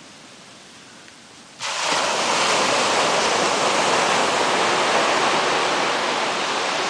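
Surf breaking on a sandy beach: a loud, steady wash of noise that comes in suddenly about a second and a half in, after a faint, quiet start.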